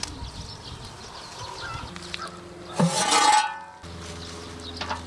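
A flying insect buzzing close by in the open air. A loud, short rush of noise comes about three seconds in, then a steady low hum takes over.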